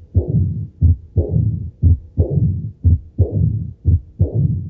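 Heart sounds through a stethoscope with an Austin Flint murmur, the sign of severe aortic regurgitation: a low-intensity mid-diastolic murmur followed by a louder one, with no opening snap before it. It beats about once a second, each beat a short sharp sound followed by a longer fading one.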